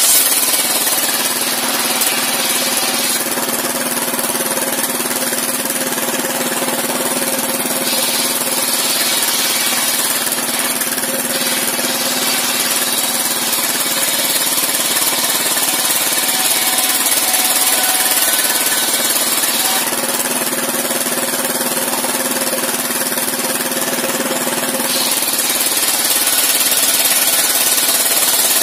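Engine-driven circular sawmill running steadily as a long wooden plank is fed through its large blade, the saw ripping along the board. The engine's steady note sits under the hiss of the cut, which changes every few seconds.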